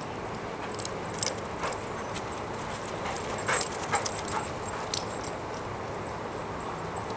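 Dog making a few short sounds during play, the loudest about three and a half to four seconds in, over a steady background hiss.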